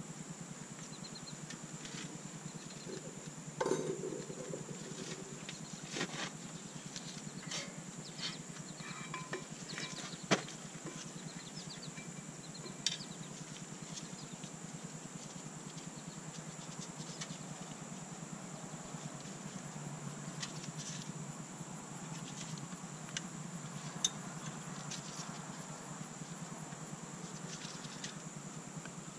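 Scattered metallic clicks and knocks of hand tools and the brake caliper being handled at a car's front wheel hub. The loudest knock, about four seconds in, rings briefly. A faint steady low hum and a high steady whine run underneath.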